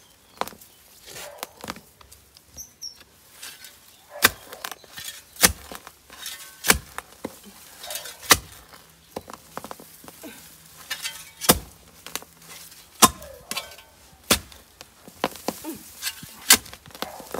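Short-handled spade chopping into soil and a clump of bamboo roots: repeated sharp strikes at uneven intervals, the heaviest from about four seconds in. The digging is hard going because of the dense root mass.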